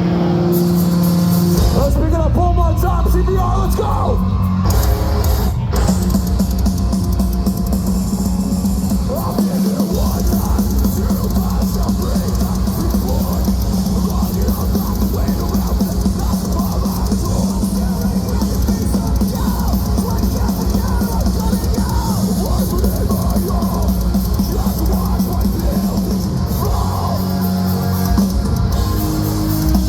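Metalcore band playing live at full volume: heavy guitars, bass and drums. A yelled vocal line rides over it a few seconds in.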